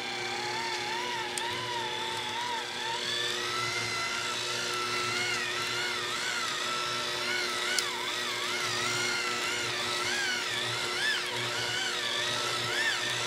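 Breville electric hand mixer running, its beaters working flour into a stiff cookie dough. The motor whine starts at a low speed, steps up in pitch about three seconds in, and then wavers as the beaters meet the dough's changing resistance.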